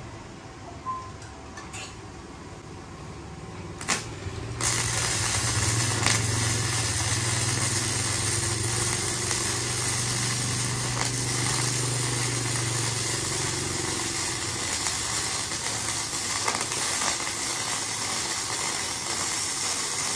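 Gasless flux-cored MIG welder (Kobe MIG-272K) welding thin box-section steel at a current turned down low. A couple of clicks come first, then about four and a half seconds in the arc strikes and runs as a steady, even hiss, with a low hum under it through the first half.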